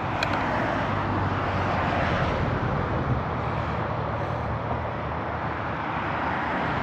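Steady rush of road traffic passing on a nearby roadway, with a brief click just after the start.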